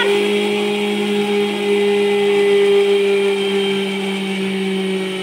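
Electric mixer grinder running steadily at full speed, its steel jar dry-grinding roasted flaxseed into powder.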